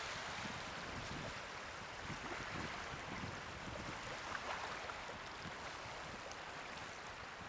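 Caspian Sea waves washing steadily, with wind buffeting the microphone in uneven low rumbles.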